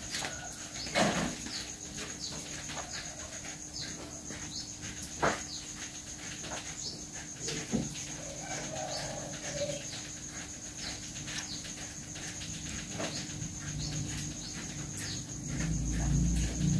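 Mother cat licking her newborn kitten clean: short, soft licks about every half second, with a couple of sharper clicks, over a steady high insect whine. A low rumble rises near the end.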